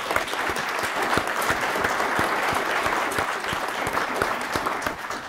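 Small audience applauding: many hands clapping steadily, dying away near the end.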